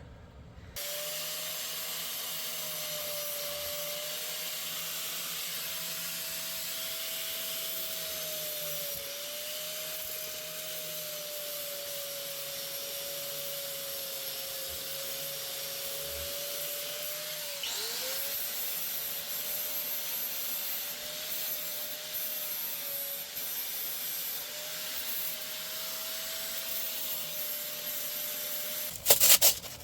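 An electric motor-driven machine running steadily, with a wavering motor tone over a hiss. About two-thirds through, the tone dips sharply and recovers, as if briefly loaded.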